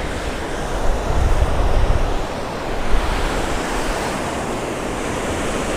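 Ocean surf breaking and washing up the beach, a steady rushing, heard muffled through a GoPro's waterproof housing, with wind rumbling on the microphone, strongest about a second in.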